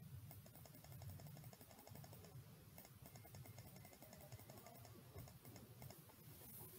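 Near silence, with faint, rapid clicking from a computer mouse over low room noise.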